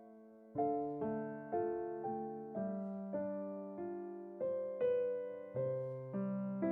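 Background piano music: single notes and chords struck about twice a second, each fading away, starting about half a second in after a brief lull.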